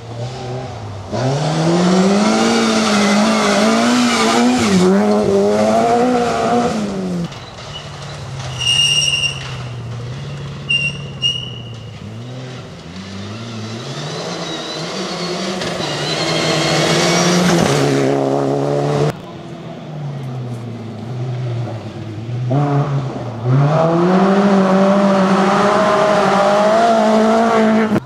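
Rally car engines at full throttle, revving up and falling away through gear changes as a BMW 3 Series Compact and a Mitsubishi Lancer Evolution pass in separate clips. A short high-pitched tone sounds twice near the middle.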